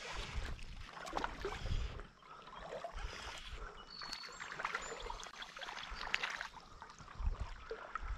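Shallow creek water trickling and sloshing, with small splashes and low bumps of the water on the microphone, as a wading angler moves while playing a fish.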